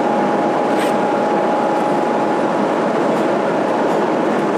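Steady cabin noise inside a Boeing 777 airliner: an even rushing hum with a thin steady whine running through it.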